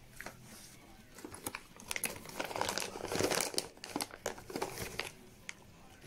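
Plastic dog-treat bag crinkling and rustling as it is handled, in irregular rustles that are loudest in the middle seconds.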